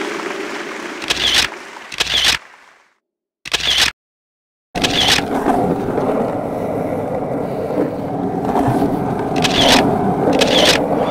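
Skateboard sounds: a rolling rumble that fades out and cuts to dead silence for about two seconds, then rolls on steadily with several sharp clacks of the board.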